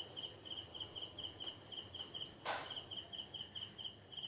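Crickets chirping at night in short, evenly repeated pulses, with a brief soft swish about halfway through.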